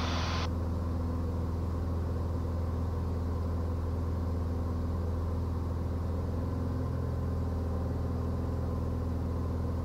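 Cirrus SR20 G6's Lycoming IO-390 engine and propeller droning steadily in flight, a low even hum with steady overtones. A hiss stops abruptly about half a second in.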